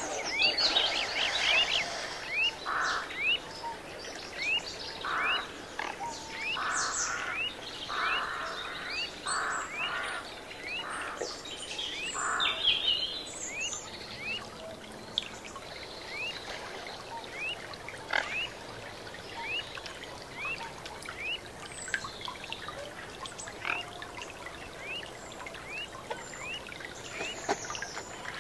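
Wildlife ambience of animal calls, with birds among them: a short rising call repeats about once a second over a faint hiss. Denser chirping and other calls fill the first half.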